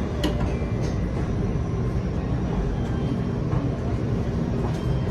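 Steady low rumble of a Shinkansen carriage standing at the platform, heard from inside the car, with a few faint clicks near the start.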